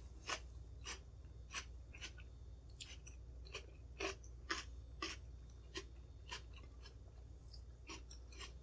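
A mouthful of raw bell pepper sandwich being chewed: quiet, crisp crunches at an uneven pace, about one or two a second.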